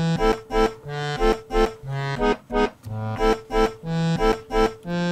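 Sampled accordion and bass playing an oom-pa-pa polka accompaniment from a music production program: a low bass note about once a second, each followed by two short accordion chord stabs.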